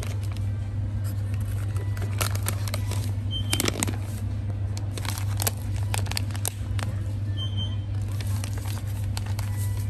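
Plastic packaging pouch crinkling and crackling as it is handled, with scattered sharp clicks over a steady low hum.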